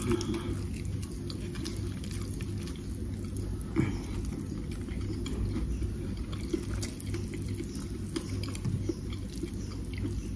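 Soft scattered clicks and smacks of fingers picking apart fried fish and gari on a plate, over a steady low hum, with one sharper knock about four seconds in.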